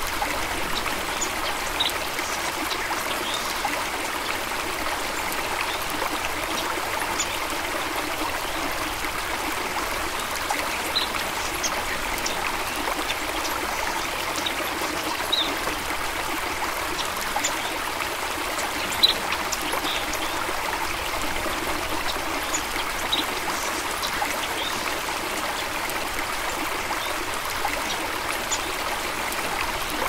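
Small stream trickling and babbling steadily, with brief high plinks now and then.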